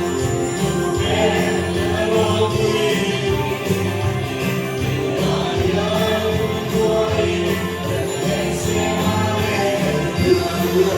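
Music with singing voices over steady instrumental accompaniment.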